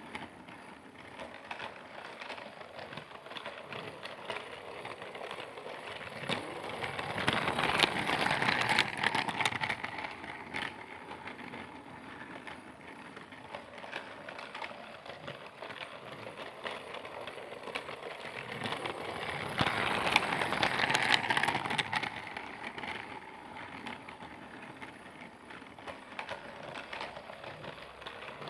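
Motorized Percy toy train running along its track, a steady small-motor whir with rattling and clicking of the wheels. It grows louder and fades away twice, about eight seconds in and again about twenty seconds in, as it comes near and passes.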